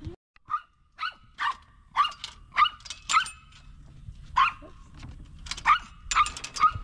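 Dogs barking repeatedly in short, high-pitched yaps, one or two a second, with a brief pause near the middle.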